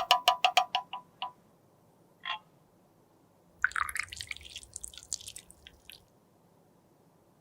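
Close-up handling sounds from makeup repair: a quick run of about eight light clinks, each with a brief ringing tone, as a tool taps a small hard container. A single click follows about two seconds in, then a couple of seconds of scraping that stops near the end.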